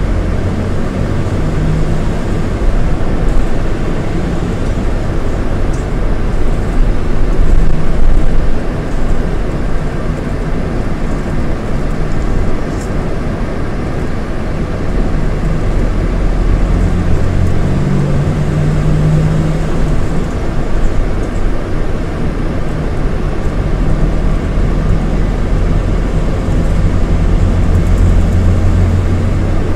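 Scania DC9 230 hp diesel engine of a coach running under way with road noise: a loud, steady low drone whose note swells and eases a few times as it pulls.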